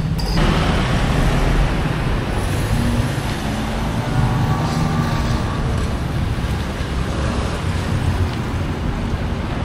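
Street traffic noise: road vehicles running and passing in a steady wash of sound with a heavy low end.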